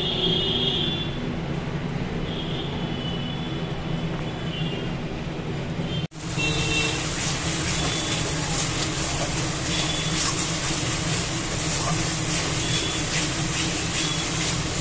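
A steady low hum, then, after a brief cut about six seconds in, thick spice paste for ghugni sizzling as it fries in an aluminium wok, with a spatula stirring and scraping the pan in scattered clicks.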